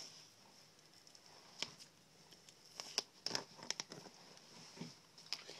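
Faint handling noises from a pheasant being cleaned by hand: a scatter of small clicks and soft rustles, busiest about three to four seconds in.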